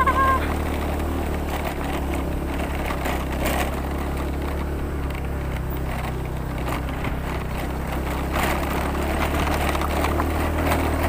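Vehicle engine running steadily while driving along a rural road, heard from on board, with a short high chirp right at the start.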